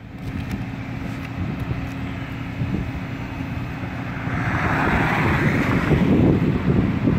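Flatbed tow truck running with its hydraulic bed in operation: a steady low engine drone with a constant hum, and a hissing rush for about two seconds midway.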